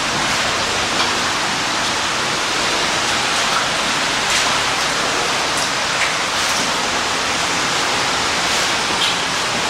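Waterfall roar: a loud, steady, even rush of falling water with no let-up.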